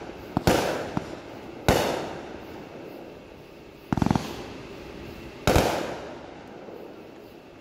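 Fireworks going off: three sharp bangs, each dying away in a trailing echo, with a quick rattle of several pops between the second and third.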